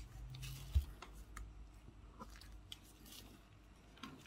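Faint, scattered clicks and light taps of hands handling a plastic nail tip and a set acrylic piece, with one dull thump just under a second in.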